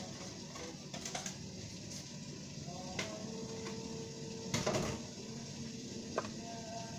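A few light knocks and clatters of a squash half and a small plastic container being handled at a kitchen sink, the loudest about two-thirds of the way through, over a steady low background hum.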